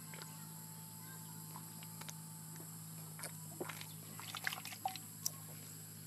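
Rural field ambience: a steady high insect drone, with a quick run of short clicks and rustles about three and a half to five seconds in.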